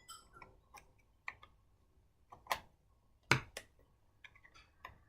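Irregular small clicks and taps of a small screwdriver working at the screws and parts of an old model train, the sharpest about three seconds in.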